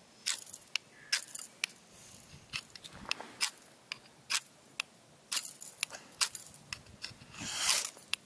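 A knife scraped repeatedly down a fire striker rod to throw sparks onto tinder: a dozen or so short, raspy strikes at irregular intervals, with one longer scrape near the end.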